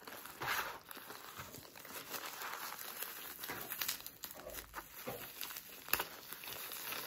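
Clear plastic wrapping crinkling as it is handled, a continuous scratchy rustle with many small crackles and a sharper crackle about six seconds in.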